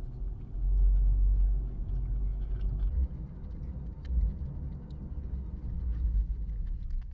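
Car on the road, a steady deep rumble that swells and eases a few times, loudest about a second in.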